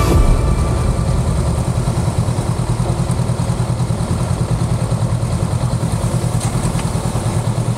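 Honda CBR500R's parallel-twin engine running at low revs while the bike rolls slowly through traffic, with an even, fast pulsing beat.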